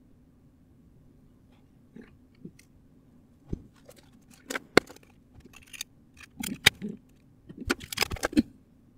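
Sped-up studio handwork: a scatter of sharp clicks and snips, sparse at first and thickening in the second half, over a faint steady hum.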